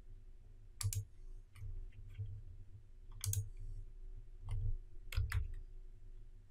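A computer mouse clicking about seven times at uneven intervals, over a faint steady low hum.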